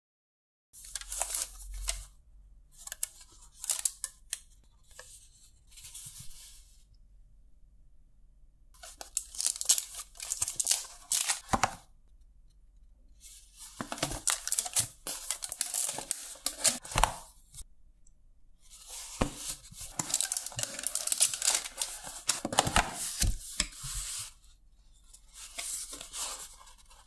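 White paperboard takeaway food boxes being opened by hand, their folded flaps rubbing and crackling in several rustling bursts of a few seconds each, with short pauses between.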